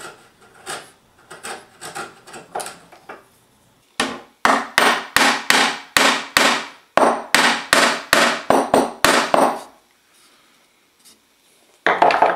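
A chisel shaving bamboo in short scraping strokes, then the bamboo dovetail joint being tapped together: a rapid run of about twenty sharp taps, three to four a second, and one more knock near the end.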